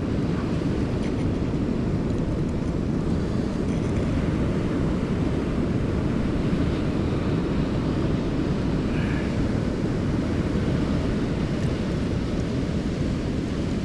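Steady wind rumble on the microphone mixed with ocean surf at the shore: an even, low noise with no distinct events.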